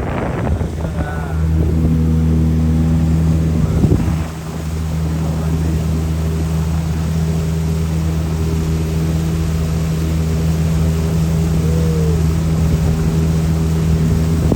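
A boat's motor running steadily at a constant pitch, a loud even drone.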